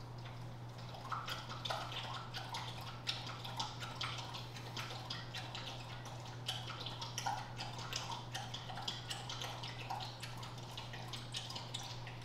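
A dog lapping water from its bowl: a long run of quick, irregular wet laps and drips, over a steady low hum.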